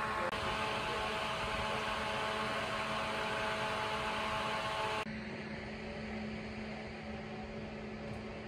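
Steady engine hum with a few steady tones, typical of fire apparatus idling at a scene; the hum drops and changes abruptly about five seconds in.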